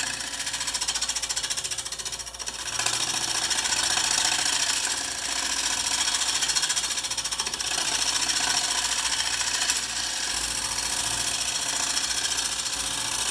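A round-edged turning tool scraping the uneven end-grain face of a wooden blank spinning on a wood lathe, truing it up: a steady, rapid scraping with the lathe running under it. The scraping eases off briefly about two seconds in.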